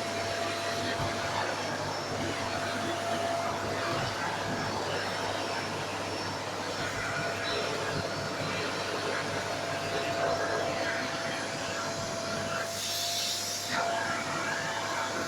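Vacuum cleaner running steadily with a thin constant whine over its motor noise; a little past the middle the sound turns hissier for about a second.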